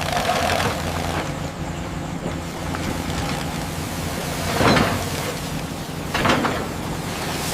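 A steady low mechanical rumble with a noisy hiss over it, broken by two short whooshes about four and a half and six seconds in.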